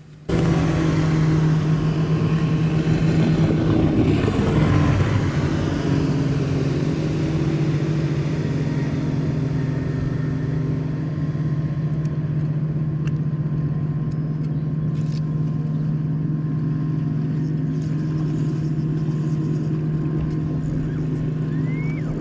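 Boat motor running steadily with a low hum over a wash of noise; the sound swells about three to five seconds in.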